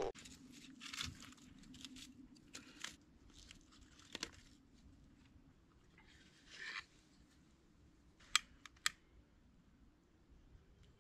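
Split kindling being set against charred logs in a fire pit: soft crunches, scrapes and small wooden knocks over a faint steady low hum. About eight and a half seconds in come two sharp clicks half a second apart from a long-neck lighter being triggered to light the kindling.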